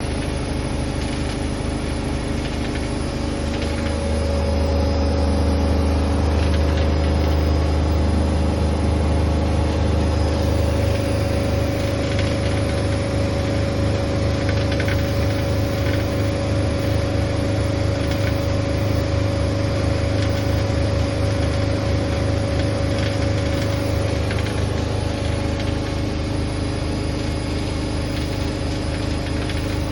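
Candy Grand O Vita GVS168D3 washing machine on its final spin: the drum and motor run with a steady low hum and a motor whine, the pitch of the rumble shifting about a third of the way in and the whine dropping away a few seconds before the end. The spin is held below full speed because of an unbalanced load.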